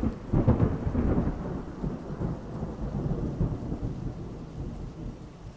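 Thunderstorm sound effect ("RBH Thunderstorm" from Freesound) playing: a deep rumble of thunder over rain, loudest in the first second or so, then slowly fading away.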